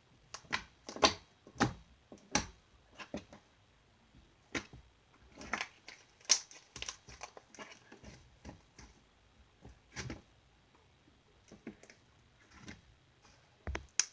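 Glossy, clicky slime being squeezed and pressed by hand, giving irregular sharp clicks and pops, sometimes several in quick succession.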